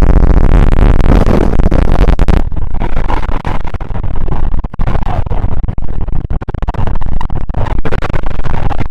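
Very loud, harsh distorted noise. It opens as a low buzz with many overtones, turns into a dense crackling clatter about two and a half seconds in, and cuts off suddenly near the end.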